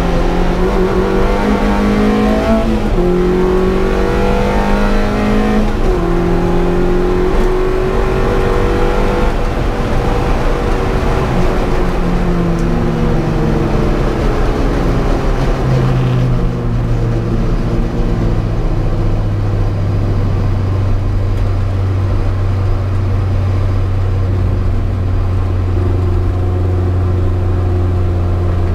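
Opel C20XE 2.0-litre 16-valve four-cylinder heard from inside the car's cabin, pulling hard with rising revs and breaks in the note at about three and six seconds that match upshifts. From about halfway through the engine settles into a low steady drone with slowly falling revs as the car slows off the throttle in fifth gear.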